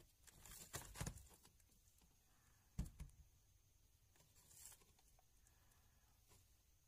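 Faint rustling and handling noise from plastic kitchen appliances being shifted about in a cluttered cupboard, with a sharp knock and a smaller one about three seconds in.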